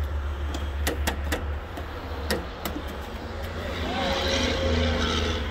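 Boots knocking on the snowy fold-out metal entry steps of a travel trailer, several separate clunks in the first three seconds, over a steady low rumble.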